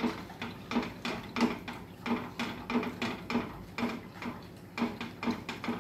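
Steel spoon scraping and clinking against a kadhai in quick strokes, about three a second, as flour is stirred into jaggery syrup to form anarsa dough.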